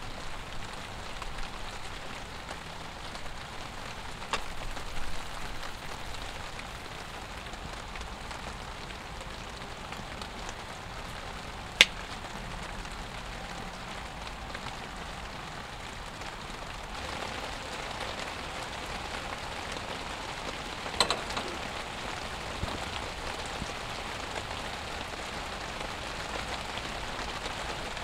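Steady rain, an even hiss throughout. A few sharp clicks and knocks break through it; the loudest comes about twelve seconds in, and a small cluster comes near twenty-one seconds.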